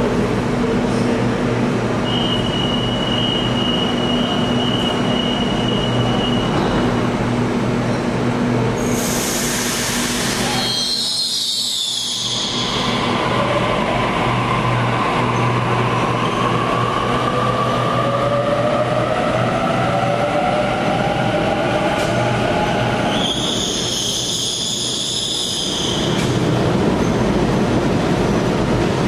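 Train running on rails with a steady rumble and a whine that slowly rises in pitch as it gathers speed. Two bursts of high squealing come about nine seconds in and again near the end.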